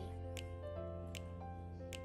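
Background music: held notes that change pitch every so often, over a light tick a little less than once a second.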